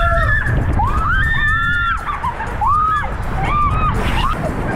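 Riders on a group water-slide raft screaming and whooping in a run of high cries that rise and fall, the longest about a second in and shorter ones after, getting smaller toward the end, over a steady low rushing noise.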